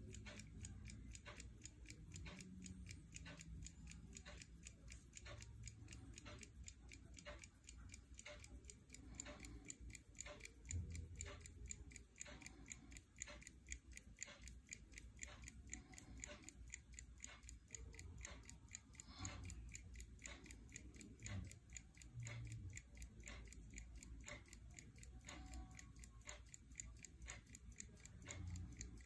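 1953 Westclox Dax pin-lever pocket watch movement ticking, faint, rapid and even, its balance wheel running. A few soft low bumps come from fingers handling the case.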